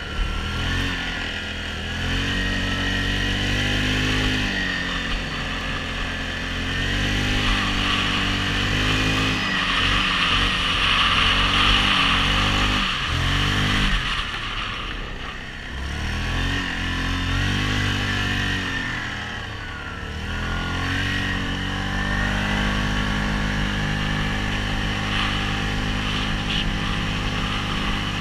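Yamaha Grizzly 700 ATV fitted with tracks, its single-cylinder four-stroke engine running under throttle while driving through snow. Its pitch rises and falls as the rider speeds up and eases off, dropping back a few times.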